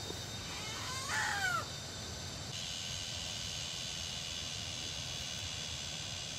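A bird calls once about a second in, a short run of falling notes. Under it runs a steady high insect drone that shifts lower about halfway through.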